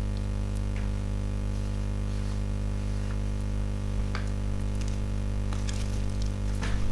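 Steady electrical mains hum made of several constant tones, with a few faint clicks.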